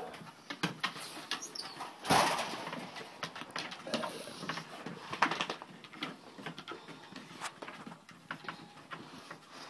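Great Dane puppies scrambling and playing on a wooden deck: paws and claws click and scuff on the boards again and again, with a louder scuffle about two seconds in.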